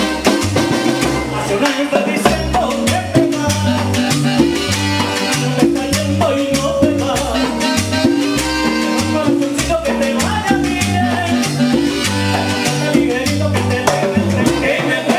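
A live Latin tropical dance band playing, with a bass line stepping from note to note under keyboard chords and steady percussion.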